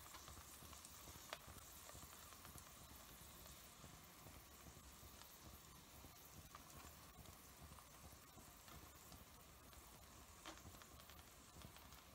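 Very faint sizzling of an egg omelette cooking in a non-stick frying pan, with a soft click about a second in and another near the end.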